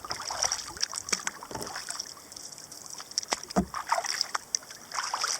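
Kayak paddle strokes: the blades dipping into the water with irregular splashes and drips.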